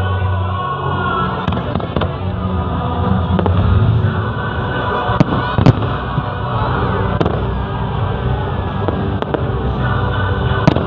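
Aerial fireworks bursting: a string of sharp bangs at irregular intervals, the loudest about halfway through, over music and crowd voices.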